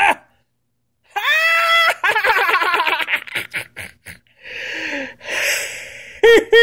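A person's high, squeaky character voice for a talking binder clip, making wordless sounds: a squeal about a second in, quick chattering, a breathy hissing stretch, then rapid high giggles near the end.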